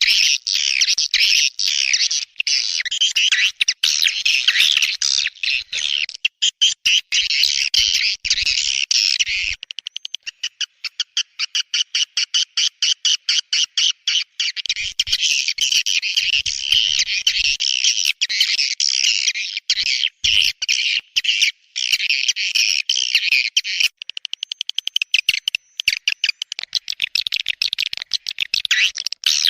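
Swiftlet calls: a dense, unbroken stream of rapid high twittering chirps, in places running into a fast, even clicking buzz. It is a swiftlet call track of the kind played to lure swiftlets into nesting houses.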